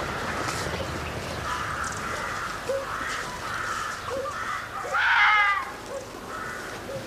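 Birds calling: a run of short calls, with one louder call about five seconds in.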